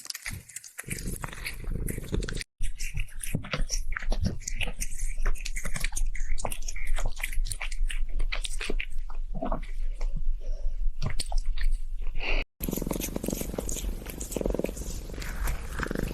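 A cat biting and chewing on a toy: dense, irregular crunching and clicking, cut off briefly twice.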